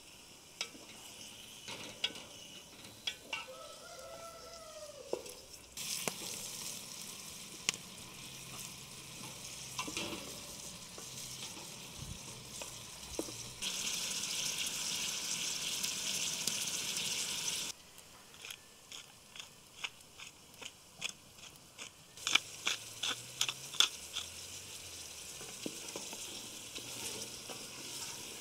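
Lamb pieces and chopped onions frying in oil in a metal pot, sizzling steadily, while a wooden spoon stirs and knocks against the pot. The sizzle swells louder for a few seconds about halfway through, and the spoon strokes come in quick runs near the end.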